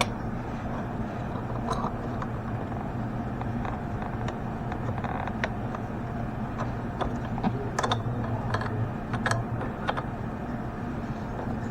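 Scattered light clicks and taps of hand tools working on fuel-line fittings, over a steady low hum.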